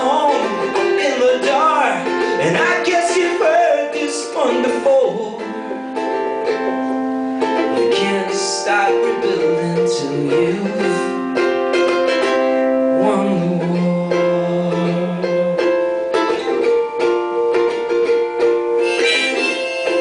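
Live song on a ukulele, strummed and picked through an instrumental passage, with long held notes over the strumming.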